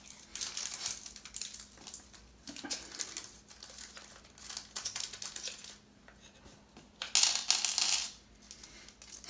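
Small metal nails clicking and a plastic packet crinkling as nails are picked out of a craft kit's bag, with a louder crinkling about seven seconds in that lasts about a second.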